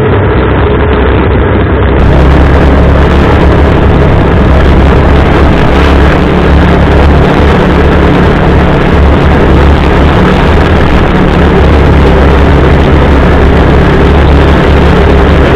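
CFMoto UForce 600 side-by-side's single-cylinder engine pulling steadily while driving along a dirt trail. It is a loud, constant drone that holds the same pitch throughout.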